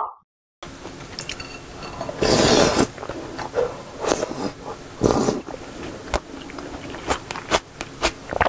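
Close-miked eating: slurping seafood jjamppong broth from a small bowl, with two louder slurps about two and five seconds in and chewing and utensil clicks in between. A short blip and a moment of silence come first.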